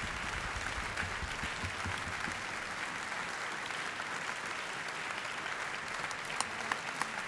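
Audience applauding steadily, with a few louder single claps standing out near the end.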